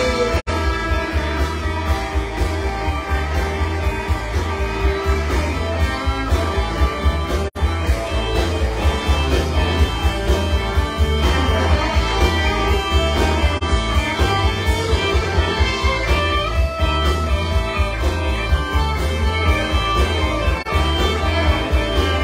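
Live rock band playing an instrumental passage with no vocals: electric guitar over drums, bass and electric keyboard, with a steady beat. The sound drops out for an instant twice, once about half a second in and again about seven seconds later.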